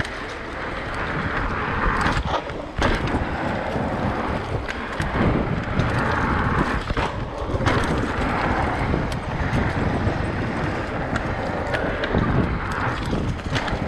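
Wind rushing over the microphone of a camera on a mountain bike, over the rumble of knobby tyres rolling fast along the trail. Scattered clicks and rattles from the bike run through it.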